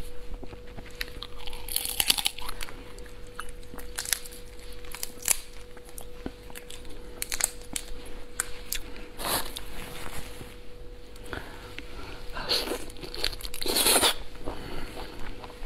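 Lobster shell cracking and crackling as it is pulled apart by hand, with biting and chewing close to the microphone: a run of sharp snaps and clicks, and longer tearing crunches about 9, 12 and 14 seconds in. A faint steady hum runs underneath.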